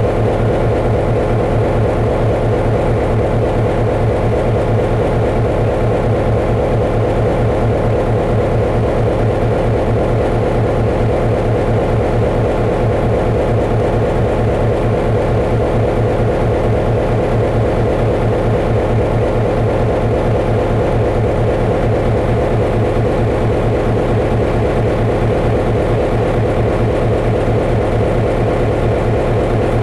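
Steady, loud drone of a train locomotive running, with an even low hum and a second band higher up and no breaks or changes.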